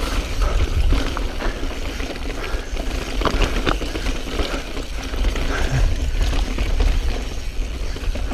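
Mountain bike descending rocky singletrack: steady low wind rumble over the camera microphone, with scattered knocks and clatter from the tyres and the 2016 Specialized Stumpjumper S-Works full-suspension bike rattling over rock.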